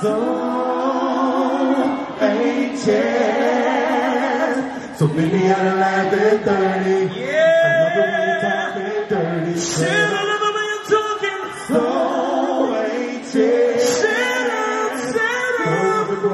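Live R&B singing: a male lead vocalist sings into a handheld microphone over the PA, with other voices singing along in layered lines.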